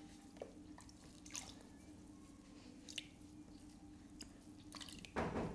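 Wet sounds at a potter's wheel: hands dipping into a bucket of throwing water, with scattered faint drips and a louder splash near the end, over a faint steady hum.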